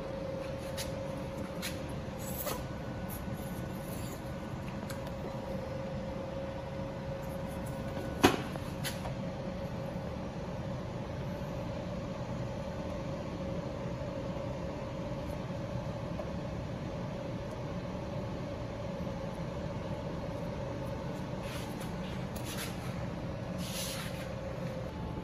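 Steady hum of running equipment with a constant mid-pitched whine, and one sharp click about eight seconds in.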